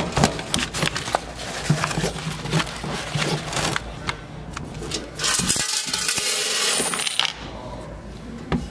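Coins, mostly quarters, clinking and jingling as they are handled and dropped onto a cloth bag, in many short clicks. About five seconds in there is a steadier rush lasting almost two seconds.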